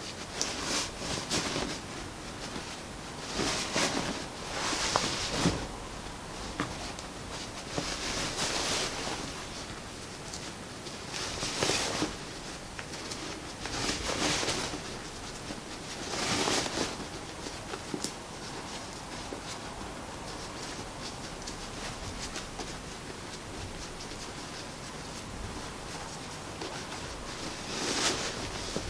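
Cotton wax-print fabric rustling and scrunching in repeated short bursts as elastic is pushed through the skirt's waistband channel, gathering the fabric. There is a quieter stretch of several seconds in the second half.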